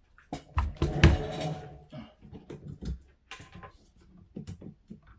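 Handling clatter as a USB-C cable is plugged into a keyboard: a string of clicks and knocks, loudest in a cluster about a second in, then lighter taps.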